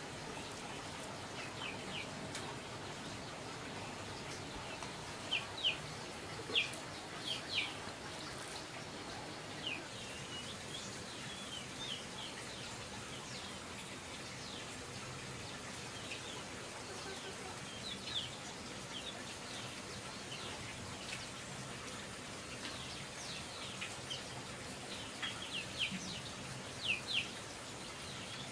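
Birds chirping: scattered short, high, falling chirps, in small clusters, over a steady background hiss.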